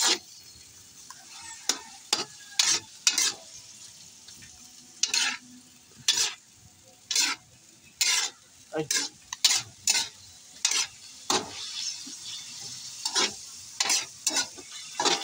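Pieces of meat sizzling in a hot wok while a metal ladle stirs them, its scrapes and knocks against the wok coming irregularly about every half second to a second. The sizzle swells a little about two-thirds of the way through.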